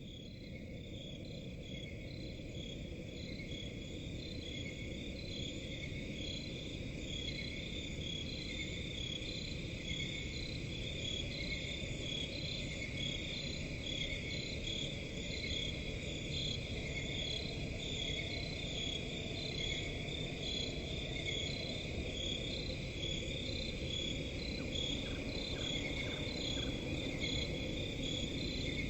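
Dense chorus of night crickets trilling in steady high bands, pulsing about once a second, over a steady low background hiss. It fades in over the first few seconds.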